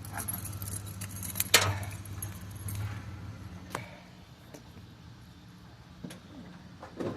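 A few sharp, irregular metallic clinks over a low steady hum that fades a little midway.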